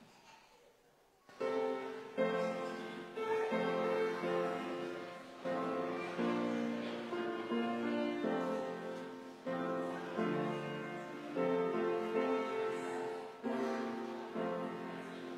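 Piano playing slow chords, each struck and fading before the next, starting about a second in.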